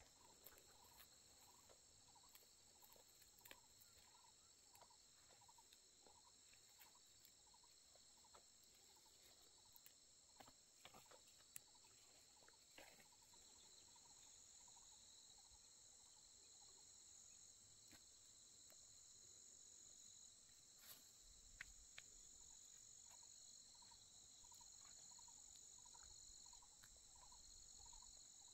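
Faint insect chorus, a steady high-pitched trill. Underneath it a short lower call repeats about twice a second, with a few faint clicks.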